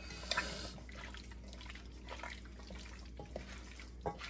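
Wet squelching and dripping of chicken pieces being mixed by hand in a marinade of vinegar and barbecue sauce in a metal pot, with a soft hiss near the start and a light click near the end.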